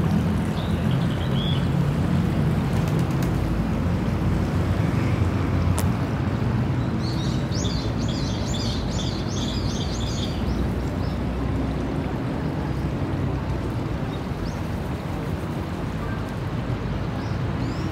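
Small birds chirping, with a quick run of high chirps about seven seconds in, over a steady low background rumble.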